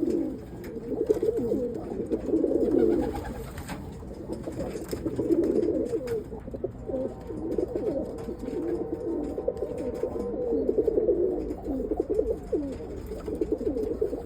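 Roller pigeons cooing continuously, several birds at once, their low, rolling coos overlapping.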